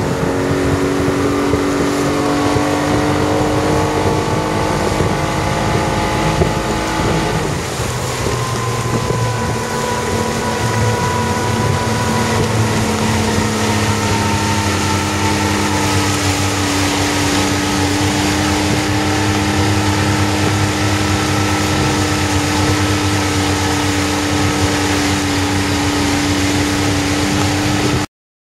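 Motorboat engine running steadily, with wind and water noise over it; its pitch shifts about seven seconds in, and the sound cuts off abruptly near the end.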